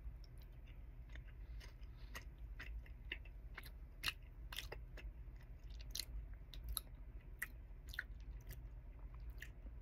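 A person chewing a mouthful of soft flaked tuna in sauce: faint, irregular wet mouth clicks a few times a second.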